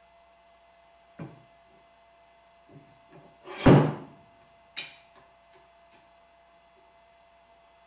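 Famco No. 3 arbor press's steel lever handle and pinion being worked by hand: a light knock about a second in, then a loud metal clunk with a short ring about midway, and a sharp click about a second after that.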